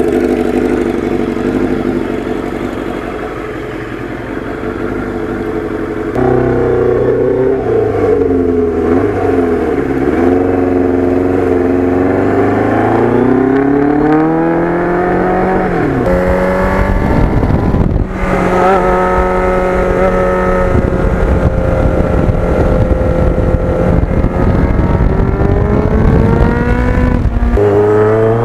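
Kawasaki GPX750R Ninja's inline-four engine pulling through the gears. Its pitch climbs, drops at each shift and climbs again. Heavy wind rush on the microphone joins it from about halfway in.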